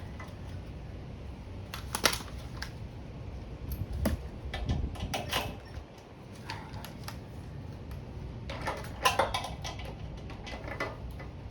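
Irregular small metal clicks and clinks of hand tools and parts as a small-engine carburetor is taken apart, over a low steady rumble.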